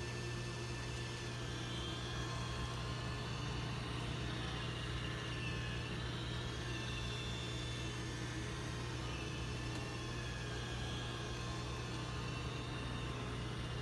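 Roomba 900-series robot vacuum running: a steady whir over a low hum, with a faint high whine that wavers slightly in pitch.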